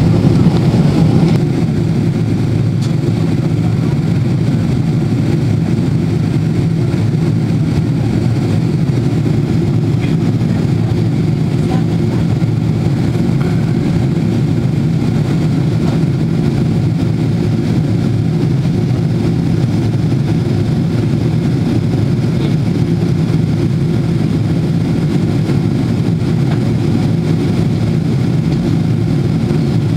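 Steady cabin noise inside a Boeing 777-300ER in flight: a low, even rush of airflow and drone from its GE90 engines.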